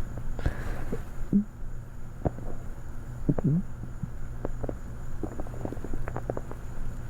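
A hungry, empty human stomach growling: irregular gurgles and short squeaky rumbles, one about a second and a half in and a longer one about three and a half seconds in, followed by a run of quick little clicks and pops.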